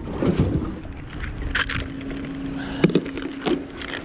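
A plastic tackle box of soft-plastic lures being picked up and handled: sharp clicks and knocks of the plastic case and a short rustle, over a steady low hum.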